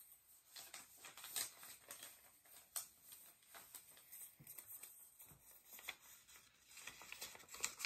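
Faint scattered clicks, taps and light rustling of small objects being handled, with no speech.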